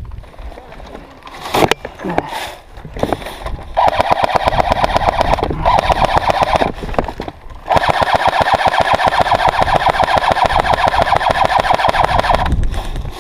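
Airsoft electric gun firing on full auto: two long bursts of rapid, even rattling fire, the second following a brief pause about halfway through. A few single sharp clicks come before them.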